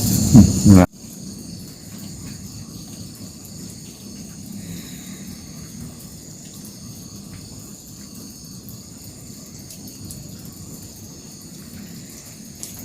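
A loud rumbling noise cuts off abruptly under a second in. Then comes the steady, high-pitched chirring of night insects such as crickets.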